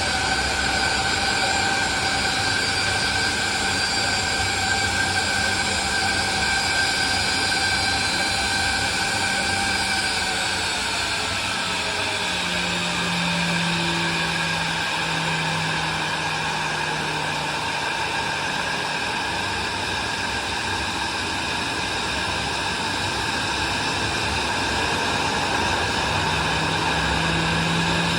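Boeing 737-900's CFM56 jet engines running at idle with a steady high whine over a rushing noise as it taxis in; the whine tones drop a little in pitch about ten seconds in.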